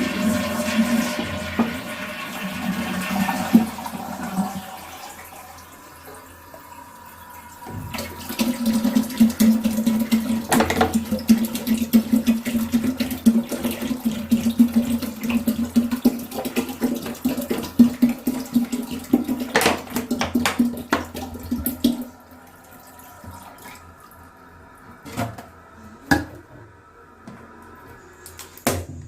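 Water running and splashing in a toilet in two long spells, the second lasting about fourteen seconds, with quieter trickling and a few knocks between and after.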